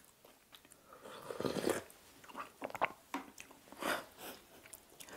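A person eating instant ramyeon noodles: a slurp about a second in, then soft chewing with small wet mouth clicks.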